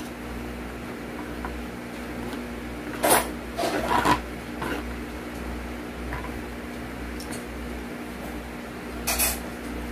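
Wooden fork scraping and rubbing across a textured plate while gathering leftover noodles. It comes in a few short bursts about three to four seconds in, and once more near the end, over a steady low hum.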